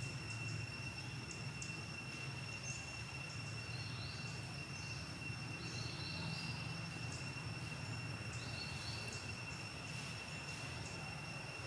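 Steady background noise: a low rumble under two steady high-pitched tones, with a few faint short chirps and scattered small clicks.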